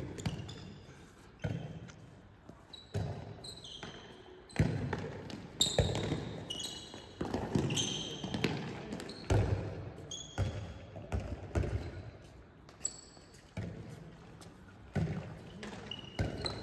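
A handball bouncing and smacking on a sports-hall floor and into players' hands, with sneakers squeaking on the court. The impacts come irregularly, every second or so, and ring on in the hall.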